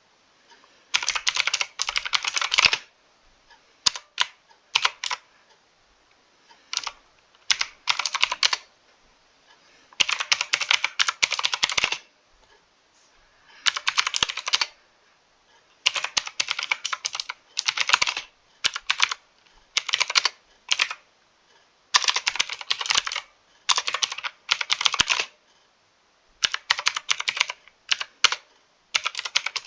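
Typing on a mechanical computer keyboard: bursts of fast key clicks lasting up to about two seconds, with short pauses between them.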